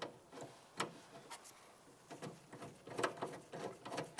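Light metal clicks and taps of a small nut being handled and fitted onto the door handle's stud inside a truck door: a few single clicks at first, then a quicker run of clicks near the end.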